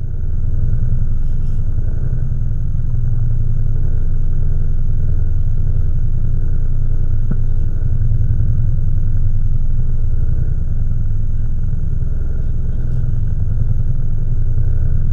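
Boat engine running steadily, a loud, even low rumble.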